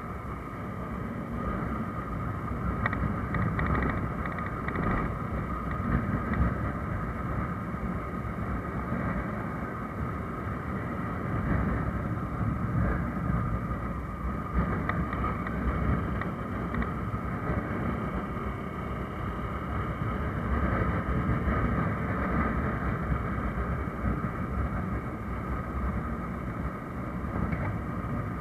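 Honda motorcycle engine running steadily while riding along a city street, mixed with wind and road noise, with no clear gear changes or sharp revving.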